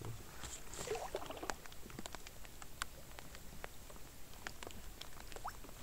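Canoe being paddled: scattered light clicks, drips and small knocks of the paddles in the water and against the hull.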